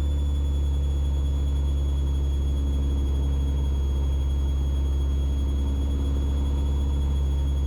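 Mooney M20E's four-cylinder Lycoming IO-360 engine and propeller droning steadily in the cockpit on final approach, a constant low hum with steady overtones.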